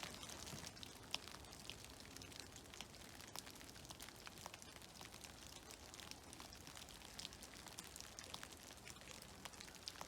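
Meltwater dripping from snow-covered trees: faint, irregular small drops pattering, several a second.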